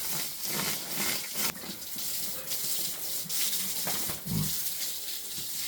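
Pigs in a pen snuffling over a steady hiss, with one low grunt about four seconds in and a few faint knocks.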